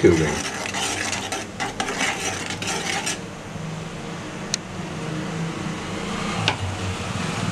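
A steel spoon stirs and scrapes around an aluminium saucepan of milk heating on a gas stove for about the first three seconds. After that comes a steady hiss with a low hum from the stove, with two light clicks.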